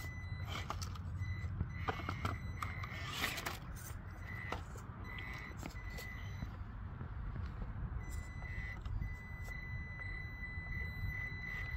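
Traxxas TRX-4M mini crawler's electric motor whining at one steady high pitch, cutting in and out as it is throttled in short bursts, with clicks and knocks of tires and chassis on rock, most of them about two to three seconds in.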